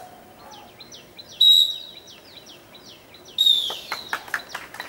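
A whistle gives two short, loud, high blasts about two seconds apart, with birds chirping in quick repeated falling notes between them. Near the end, scattered hand claps begin.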